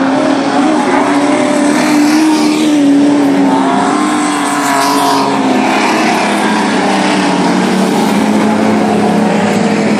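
Several speedway sports sedans racing on a dirt oval. Their engines run hard and rise and fall in pitch as the cars pass close by, loudest about three seconds in.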